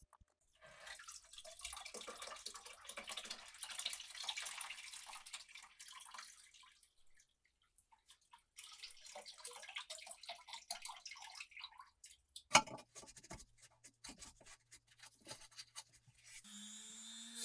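Wet-sounding scrubbing with a small brush on a lamp part, in two spells of a few seconds each. A sharp knock follows, then a few light clicks.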